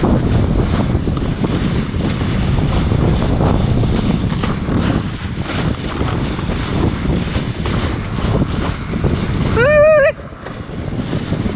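Wind buffeting the microphone of a kiteboarder's action camera, with the rush of the board through choppy water. Near the end a short, wavering, high-pitched call cuts in, and the wind noise briefly drops just after it.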